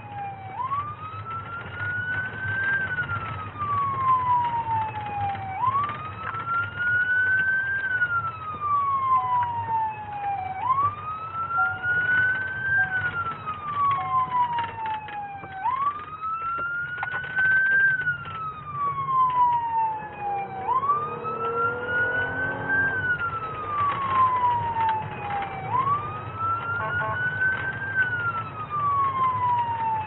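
Police car siren on a wail setting, rising and then falling slowly about every five seconds, heard from inside the patrol car over a steady rumble of engine and road noise.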